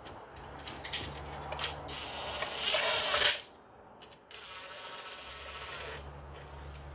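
A small power tool running in two stretches: the first builds in loudness for about three seconds and stops, then after a short pause and a click a quieter second run lasts a little under two seconds.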